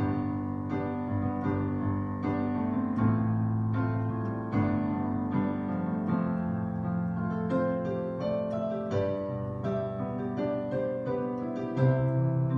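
Piano music with no singing: a slow instrumental passage of held chords and single struck melody notes, typical of a worship-song interlude.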